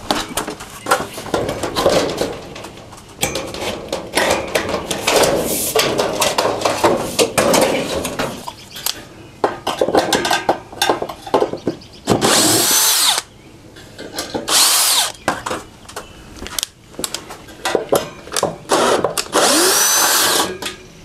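Cordless drill/driver backing screws out of the carrier rail overhead, run in three short bursts, its whine rising and falling with each trigger pull. Before the drill runs there is a long stretch of knocking and rattling.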